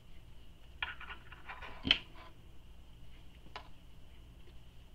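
Fabric binding being handled and clipped in place with small plastic sewing clips. There is a short rustle of handling with small clicks, a sharp clip snap just before two seconds in, and a lighter click a little later.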